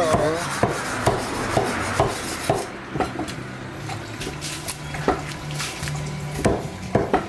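A large knife chopping through a raw barracuda fillet onto a wooden chopping block. It gives sharp knocks about twice a second for the first few seconds, then scattered knocks with a quick cluster near the end. A steady low hum runs underneath.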